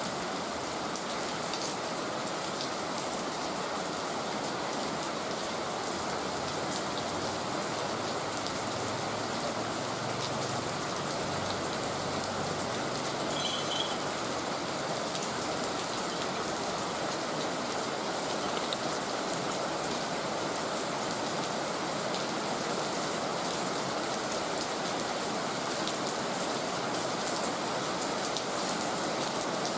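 Heavy rain falling steadily, an even, unbroken hiss of rain on surfaces. A brief faint high tone sounds about halfway through.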